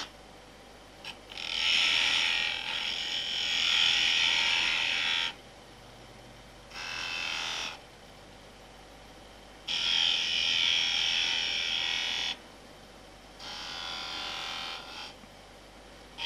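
Spindle gouge cutting a spinning wooden spindle on a wood lathe: four separate cuts, each a few seconds of high shaving noise, the first the longest. Between the cuts only the lathe's faint running is heard.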